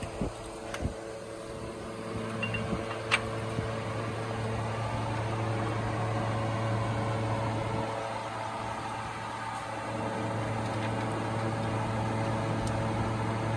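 A machine running with a steady, unchanging hum. A few light clicks come in the first seconds, with a sharper click about three seconds in.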